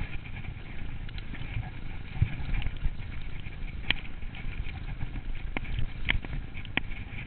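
Mountain bike riding fast over a rough, snowy singletrack: a low rumble of tyres and trail bumps with the bike rattling, and several sharp clicks or knocks, the loudest about four seconds in and three more over the next three seconds.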